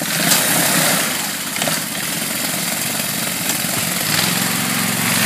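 Freshly rebuilt three-wheeled ATC's engine running while the machine is bogged in deep mud and water, with a steady rushing noise along with it. About four seconds in, the engine settles into a steady low note.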